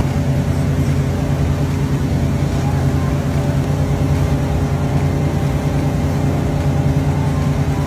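Motorboat engine running steadily under a constant low drone, with wind and water noise over it.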